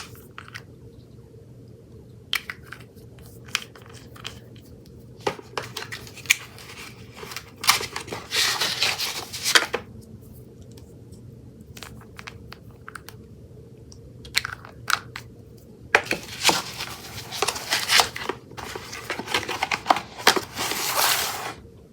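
Homemade slime being handled, with scattered clicks and two longer stretches of crackly, crunching squishing about eight seconds in and again from about sixteen seconds.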